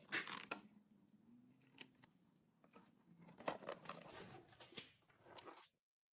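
Faint scattered scrapes and clicks, with a busier run of them partway through, cut off by a brief silence near the end.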